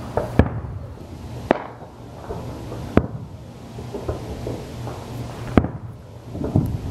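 Aerial firework shells bursting: four sharp booms spaced one to two and a half seconds apart, with a few fainter pops between them, over a low steady hum.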